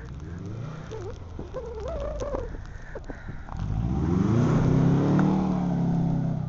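Subaru WRX's turbocharged flat-four engine revving hard while drifting in snow, climbing in pitch about three and a half seconds in and easing off near the end.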